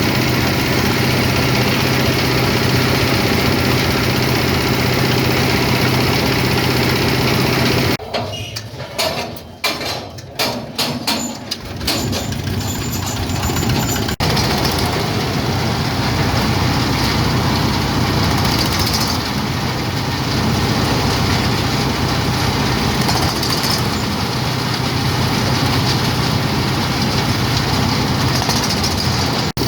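Coconut husk grinding machine running with a steady engine hum. About a third of the way through, the sound drops and stutters for a few seconds, then the steady running returns.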